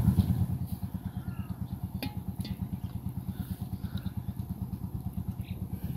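A small engine-driven water pump running steadily with a rapid, even low thudding as it sucks water out of the canal through the submerged intake hose.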